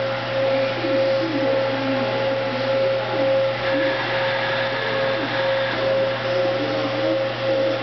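Steady hissing welding noise with a constant hum, from a Panasonic robot's MIG hardfacing weld in progress.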